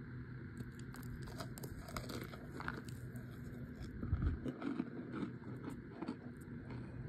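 Brittle chunks of compressed cornstarch crackling and crumbling as fingers press and pick through them, a run of small crisp clicks, with a dull thump about four seconds in.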